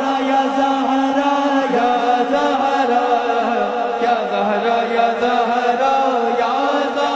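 Men's voices chanting a noha, a Shia mourning lament, together in long drawn-out melodic lines.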